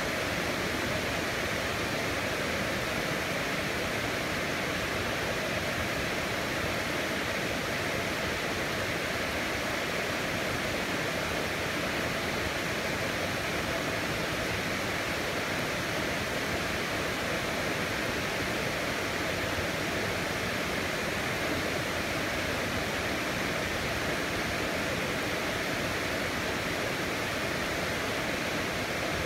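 Heavy rain falling steadily as an even hiss, with no thunderclaps.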